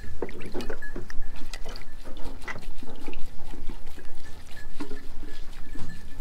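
Water sloshing and dripping as a wet cloth is swished and wrung out in a stainless steel bowl of warm soapy water, in a run of irregular small splashes.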